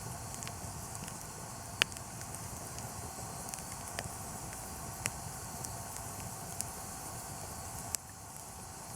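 Wood campfire crackling: a steady hiss with sharp pops every second or two, the loudest about two seconds in.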